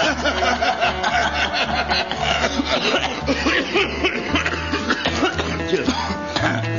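Background music with a steady low bass line, under short vocal sounds from a person that are not words.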